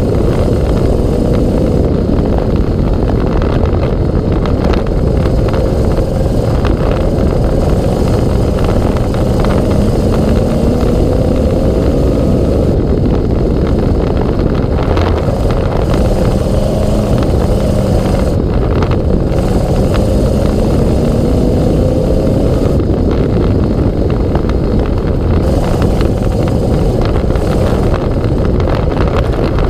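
Sprint car V8 engine running at racing speed on a dirt oval, heard from on board. It is loud and rough, and its pitch climbs steadily along each straight, then drops back into the turns, lap after lap.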